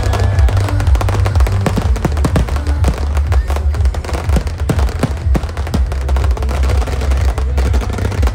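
Fireworks going off in quick succession, many sharp bangs and crackles, over loud music with a heavy bass.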